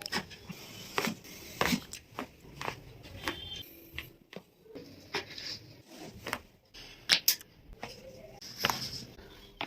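Irregular sharp clicks and taps with light rustling during a chiropractic adjustment: hands, clothing and the treatment table being worked on.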